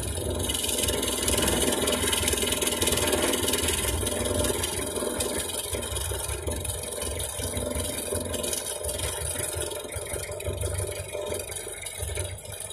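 1956 Land Rover Series engine running steadily, heard from inside the cab while the vehicle is driven.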